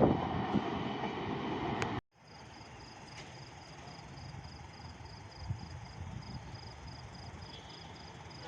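A passing train's running noise, cut off abruptly about two seconds in. Then a quiet trackside background with an insect chirping in an even, high-pitched pulse.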